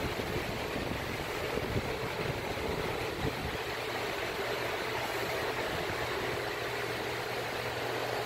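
Steady background noise, an even rushing hiss with a faint low hum under it, unchanging throughout.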